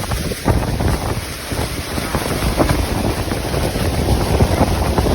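Wind buffeting the microphone over a steady rush of water aboard a tour boat.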